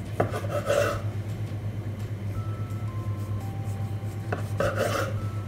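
Kitchen knife cutting down through a rolled log of puff pastry dough and knocking on the wooden table, twice, about four seconds apart, each knock followed by a short rustle.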